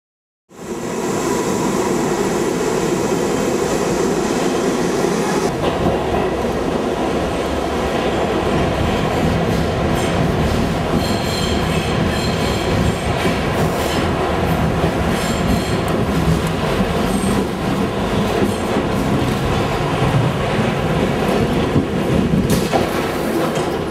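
New York City subway train running, heard from inside the car: a loud, steady noise of wheels on the track, with high-pitched wheel squeals coming and going about halfway through.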